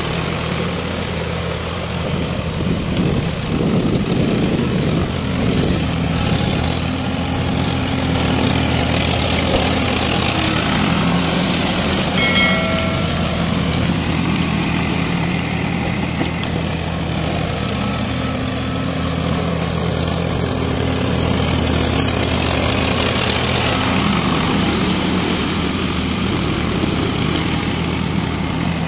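Diesel farm tractor engine running steadily under load, its pitch shifting a little, as the rear-mounted rotavator churns a flooded rice paddy into mud. A short high tone sounds about twelve seconds in.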